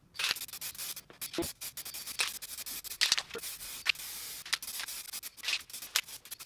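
Aerosol spray-paint can hissing in many short bursts, with one longer steady spray about four seconds in.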